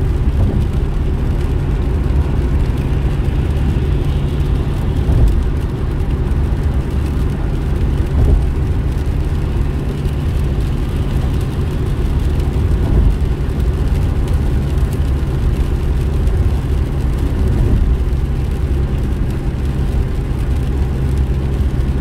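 Steady engine and road noise inside a moving car, a low rumble with tyre hiss from the wet road.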